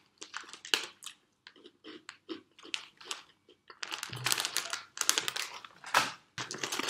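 Plastic snack packet crinkling as it is handled: scattered small crackles at first, then a denser, louder spell of crinkling about four seconds in.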